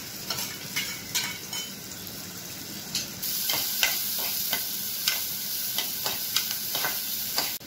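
Chopped onion sizzling in hot oil in an aluminium pressure cooker, stirred with a metal ladle that scrapes and clicks against the pot. The sizzle gets louder about three seconds in.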